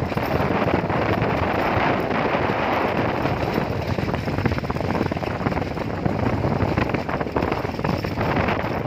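Wind rushing over the microphone during a bike ride: a steady, loud rushing noise.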